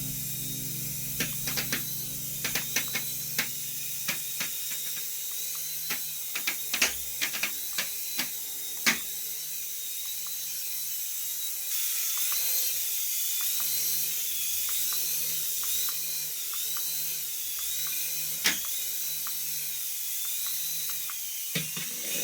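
A small electric motor whirring steadily, with many sharp clicks and a wavering high-pitched whine in the second half.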